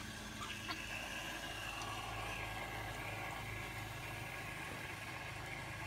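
A steady, low mechanical hum.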